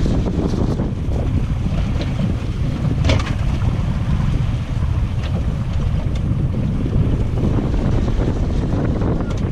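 Wind buffeting the microphone on an open boat at sea, a steady heavy low rumble with sea noise beneath it, and a light click about three seconds in.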